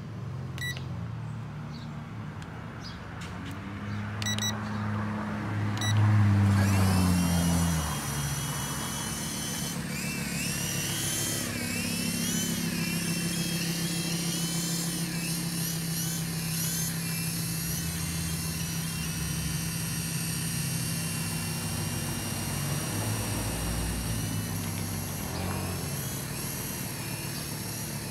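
Whine of the UDI/RC U12S mini RC helicopter's small electric rotor motors, starting up about six seconds in and then wavering up and down in pitch with the throttle over a steady low hum. Before that there is a low, shifting hum with a few light ticks.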